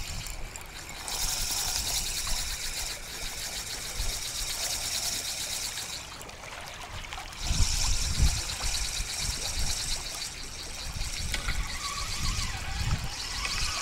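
Spinning reel being cranked to retrieve a small hooked fish, a fast even ticking in two long spells with a short pause between, and some handling rumble in the second spell.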